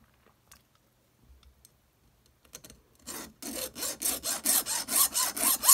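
Hand file rasping on an EarPods Lightning connector's housing in quick, even back-and-forth strokes, about five a second. It starts about three seconds in, after a few faint ticks, and gets louder toward the end.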